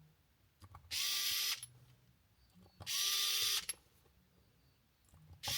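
Small cordless drill driving the tiny hex screws of an aluminium beadlock wheel ring, in three short runs of under a second each, the last starting near the end.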